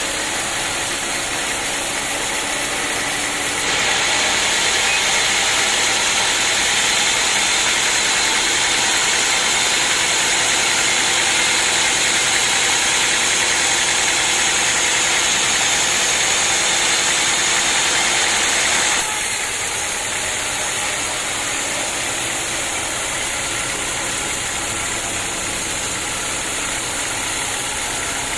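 Sawmill saw running steadily. From about 4 s to 19 s it gets louder and hissier as the blade cuts through the acacia log, then drops back to the plain running sound.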